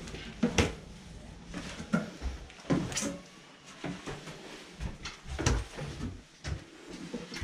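Footsteps going down wooden steps and across the plank deck of a wooden sailing ship: an irregular run of knocks and thuds, roughly two a second.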